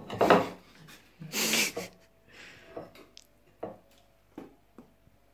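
Two loud huffs of breath, then a few short clicks and mouth noises as a freshly boiled pelmen is cut with a fork and eaten.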